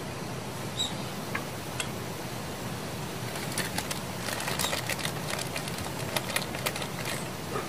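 Plastic bag crinkling as it is handled, a dense run of short crackles starting about three seconds in and stopping shortly before the end, over a steady low background hiss; a few separate light clicks come earlier.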